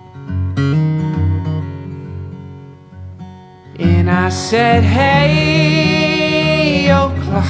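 Background song: instrumental accompaniment with a steady low bass line, and a singing voice comes in with a long held line about four seconds in.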